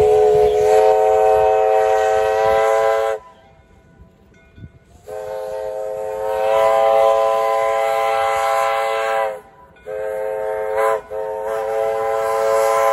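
Steam locomotive whistle blowing two long blasts, a short one and another long one, the long-long-short-long grade-crossing signal, with faint train running noise in the gaps.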